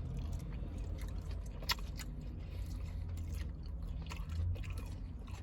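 A person biting into and chewing a crunchy battered mozzarella corn dog, with scattered short crunches, one sharper than the rest about a third of the way in. A steady low hum runs underneath.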